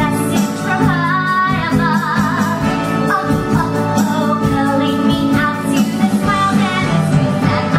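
Musical-theatre song: a woman singing held, vibrato-laden notes over band accompaniment.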